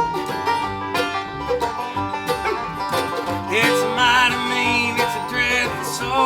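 Acoustic string band playing a country song, with banjo picking and guitar. About three and a half seconds in, a higher wavering melody line comes in over the picking.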